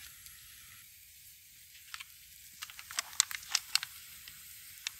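Wood campfire crackling over a faint steady hiss, with a cluster of sharp pops about two to four seconds in; colour-flame powder packets are burning in it.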